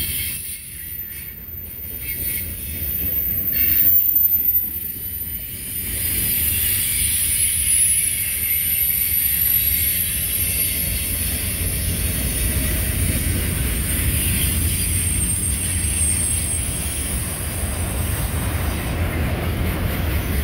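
Freight cars rolling past close by: a steady low rumble of steel wheels on rail, with thin high wheel squeals coming and going.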